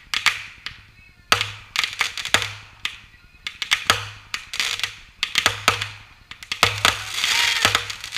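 Consumer fireworks firing in rapid succession: an irregular string of sharp launch thumps and bursts, two or three a second, with a dense crackling hiss near the end.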